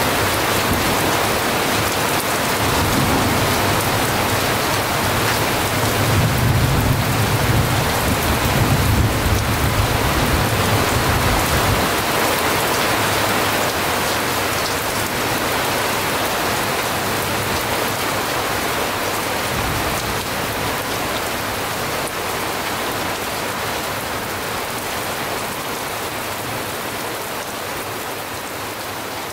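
Heavy rain pouring steadily on grass and ground, with a low rumble swelling and then cutting off about twelve seconds in; the rain eases slightly toward the end.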